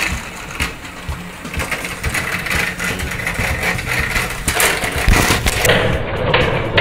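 Battery-powered TOMY TrackMaster toy train motors whirring as two pairs of engines push against each other head-on, with irregular plastic clicks. The whirring grows louder over the last few seconds.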